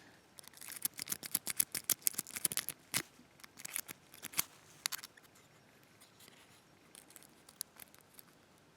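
Rapid metallic clicking and scraping of a lock pick working the pin stack of a Sterling 6-pin oval lock cylinder under tension. The clicks come fast and dense for the first few seconds, then thin out to occasional single ticks.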